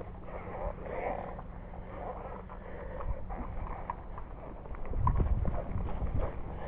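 Footsteps on grass and gear rustling from a player moving on foot, with a louder low rumble about five seconds in.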